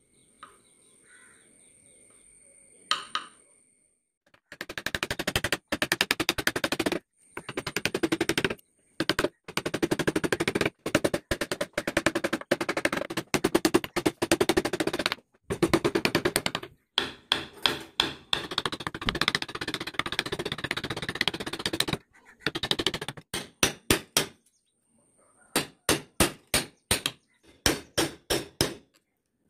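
Carving chisels and a gouge being tapped into a wooden board: fast runs of sharp knocks in bursts of one to three seconds with short pauses, slowing to separate taps about four or five a second near the end.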